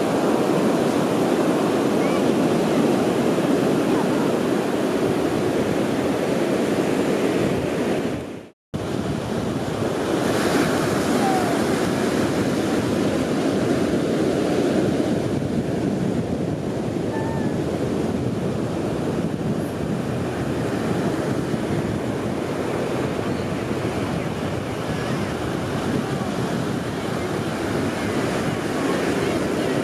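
Ocean surf: small waves breaking and washing up a sandy beach in a steady wash of noise. About eight seconds in, the sound fades out to a brief silence and then resumes.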